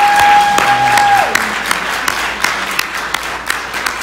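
Audience applause, many hands clapping, loudest at the start and slowly dying down. Over it near the start comes one long, high, held note that drops away at its end.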